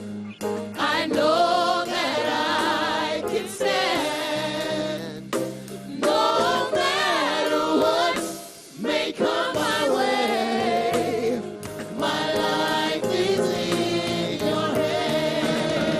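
Gospel choir singing with wavering, drawn-out vocal runs over steady sustained instrumental accompaniment.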